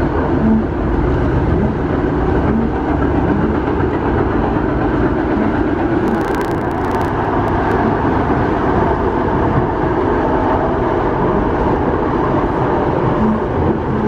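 Variobahn tram running at speed, heard from inside the passenger cabin: a steady, loud rumble of wheels on rails. A few sharp clicks come about six to seven seconds in.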